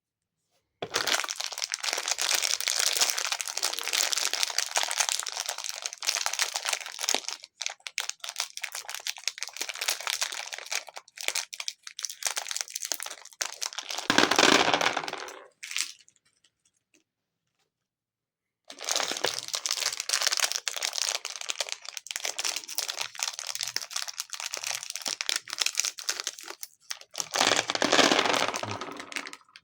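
Plastic packaging crinkling and being torn open, in two long stretches with a short pause between; each stretch ends in a louder burst.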